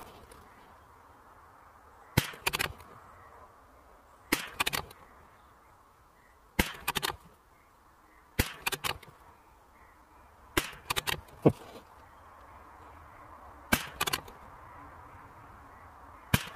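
A string of .22LR rifle shots from a Savage Mark II FV bolt-action target rifle, fired about two seconds apart; each sharp crack is followed by a few quieter clicks within half a second.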